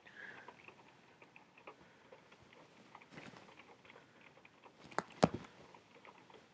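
A cat batting at a dangling watch: soft scratchy pawing and small scattered taps, with two sharp clicks a little past the middle, the loudest sounds.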